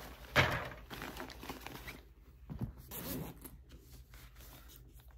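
A knock, then a second or so of rustling and crinkling, then a few fainter clicks and rustles: packaging around plastic hard cases being opened and handled.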